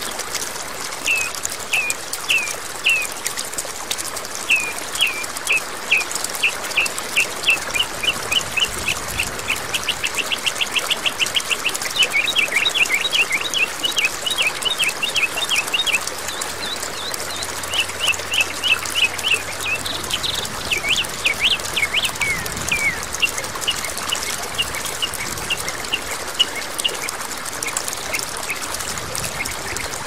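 A small songbird singing over steadily flowing water. It gives series of quick falling chirps that speed up into a fast trill about ten seconds in, then slower repeated notes.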